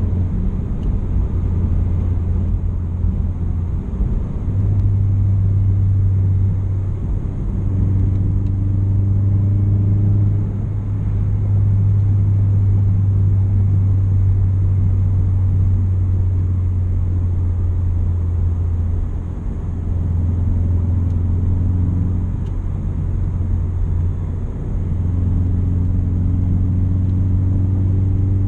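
Subaru Crosstrek's flat-four engine and 5-inch Nameless Performance muffler at steady highway cruise, heard inside the cabin: a constant low exhaust drone with road noise, easing off briefly a few times.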